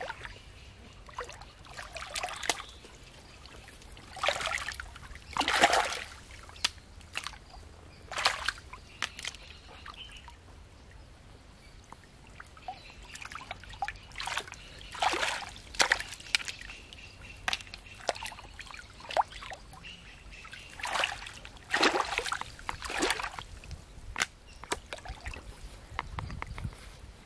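Shallow muddy pond water sloshing and splashing irregularly as people wade chest-deep and feel through it by hand for clams, with short sharp splashes every second or two.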